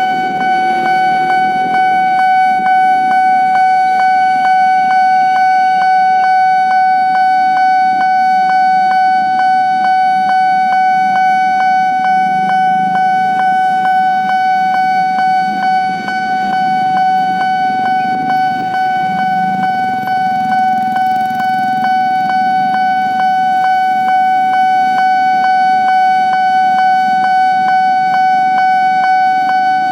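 Level-crossing warning bell sounding continuously: one steady ringing tone struck in quick, even pulses, with road-vehicle engines running underneath.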